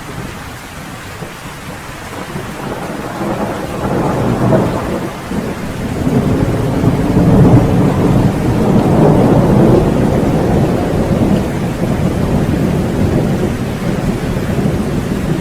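Steady rain with a long roll of thunder that builds over the first few seconds, is loudest around the middle and keeps rumbling to the end.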